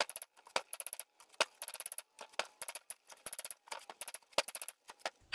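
Claw hammer rapidly tapping on a truck's front wheel hub to knock a brake rotor off it: quick runs of sharp metal-on-metal clinks, several a second. The rotor is rusted on and really stuck to the hub.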